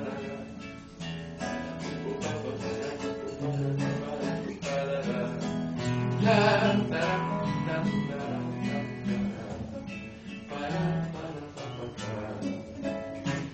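Acoustic guitar strummed and picked in a steady rhythm: the instrumental break between sung verses of a song.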